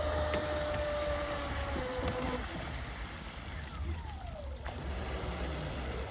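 Electric RC speedboat running on a 6S battery: a steady motor whine that fades out over the first couple of seconds as the boat runs away, then a fainter whine dropping in pitch about four seconds in as the throttle changes.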